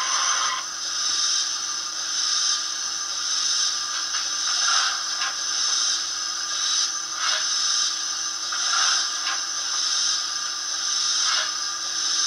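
Hornby A4 model locomotive's DCC sound decoder playing stationary steam effects through its small onboard speaker: a steady hiss with irregular louder surges every second or two, over a faint steady hum.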